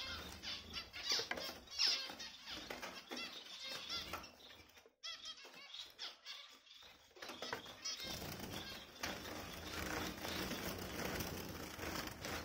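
Caged finches fluttering their wings in a wire cage, disturbed by a hand reaching in, with short chirps and rustling among them.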